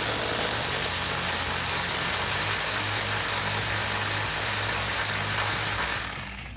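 Cordless electric ratchet with an 18 mm deep socket running steadily, spinning a bumper-mounting nut off its stud, and stopping about six seconds in.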